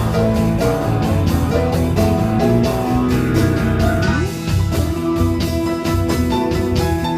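A live band playing a slow blues in E: an electric guitar picks out sustained, bending lead notes over bass and drums keeping a steady beat.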